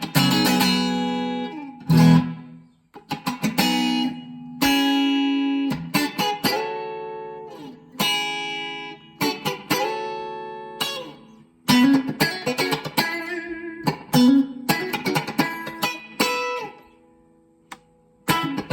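Schecter OL-PT-TH thinline electric guitar played through a VOX Mini5 practice amp: picked chords and single notes ringing out, with a few notes bent in pitch, and a brief pause near the end.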